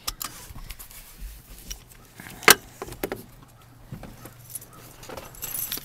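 Handling noise of getting out of a parked car: small metal jingling and rustling, with one sharp click of the car door latch about two and a half seconds in and a few lighter clicks after it.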